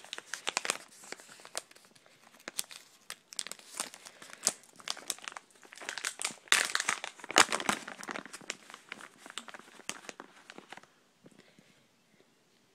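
Plastic cat-treat bag crinkling and rustling as a hand rummages in it for a treat, going quiet about eleven seconds in.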